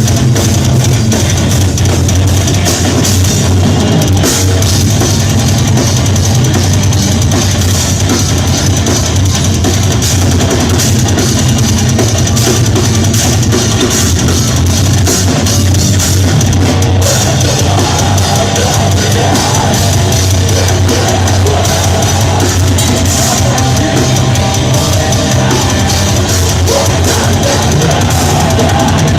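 Death metal band playing live at full volume: distorted electric guitars over a drum kit, dense and unbroken.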